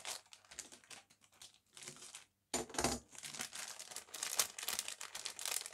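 Clear plastic bag crinkling and rustling as a grey plastic model-kit sprue is handled and drawn out of it: only a few faint rustles at first, then steady rapid crinkling from about halfway in.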